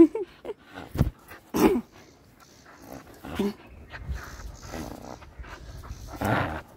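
A dog giving short play growls in four or five bursts as it tugs on a cloth in a tug-of-war game, with a dull thump about a second in.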